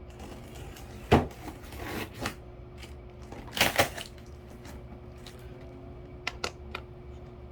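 Cardboard packaging of a microwave box being handled: two loud knocks with rustling, about a second in and again after three and a half seconds, then a few short sharp clicks near the end, over a faint steady hum.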